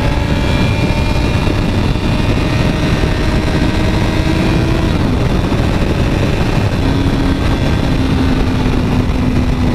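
Motorcycle riding at speed: a steady engine note under heavy wind noise on the helmet microphone. The engine note falls away about halfway through and returns a couple of seconds later at a slightly lower pitch.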